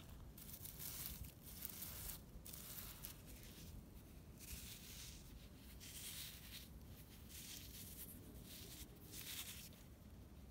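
Faint, scratchy rustling of fingers scraping and rubbing dry, dusty slag soil, in irregular strokes roughly a second apart.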